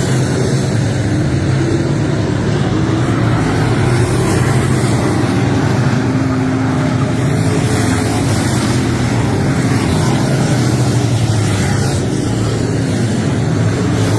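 Large engine running steadily with a constant low drone.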